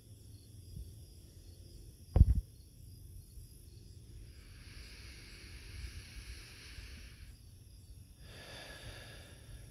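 Evening field ambience: crickets trilling steadily over a low rumble on the microphone. A single sudden thump comes about two seconds in, and soft rushing noise swells twice, in the middle and near the end.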